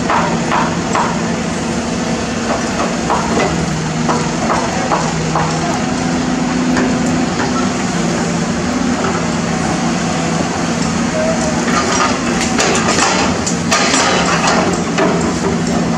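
CAT 320D excavator's diesel engine running steadily under hydraulic load while the steel bucket digs. Soil and broken rock scrape and clatter against the bucket, thickest about twelve seconds in.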